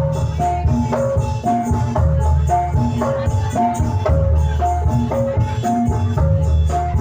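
Javanese gamelan music for a jathilan horse dance, played loud through a sound system: a short melody on metallophones repeats over and over above heavy drumming and bass.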